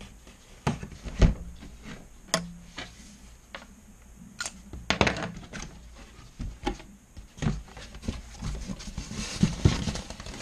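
Cardboard packaging being handled and opened: irregular knocks, thumps and scraping as a large box is shifted on a wooden bench and its flaps are pulled open, the sharpest thump about a second in.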